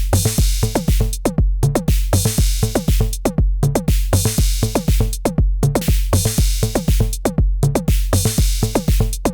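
Arturia DrumBrute Impact analog drum machine playing a looping beat with its distortion engaged: a steady kick pattern, a longer hiss-like hit about every two seconds, and a melody of short blips from its FM drum, each falling in pitch.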